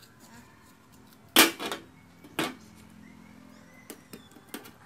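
Knife knocking on a tightly shut freshwater mussel shell over an aluminium tray: two sharp knocks about a second apart with a faint metallic ring after them, then a few small clicks near the end as the shell is prised open by hand.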